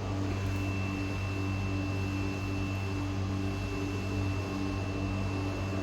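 Steady machine hum with a thin high whine that sets in just after the start.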